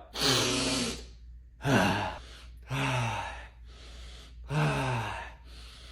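A person's breathy, half-voiced gasps, four in a row, each falling in pitch: the "ah… ah…" build-up of a sneeze from sniffing black pepper, with no sneeze coming.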